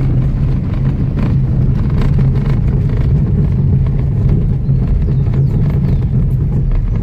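Car moving slowly, with a steady low rumble of engine and road noise.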